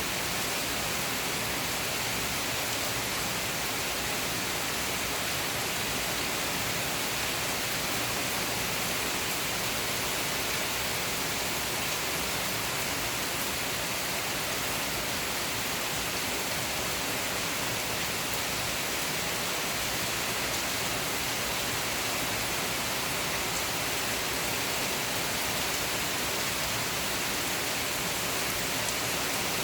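Heavy rain falling steadily, an even hiss with no break or thunderclap.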